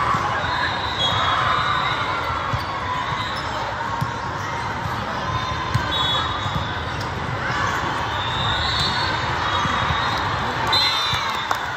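Din of a large sports hall full of volleyball courts: steady crowd chatter and shouts, with scattered thuds of volleyballs being hit and bouncing, and a few short high squeaks.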